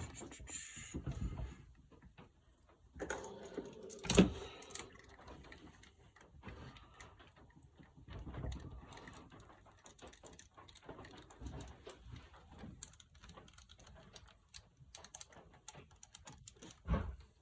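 Hand tools clicking and clinking on metal while small bolts are run in on an engine: irregular light ticks and rattles from a socket wrench and parts being handled, with one sharp metallic knock about four seconds in.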